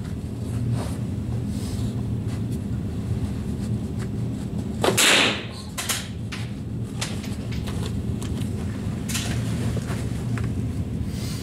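A single rifle shot about five seconds in, over a steady low background rumble, with a few fainter sharp clicks at intervals.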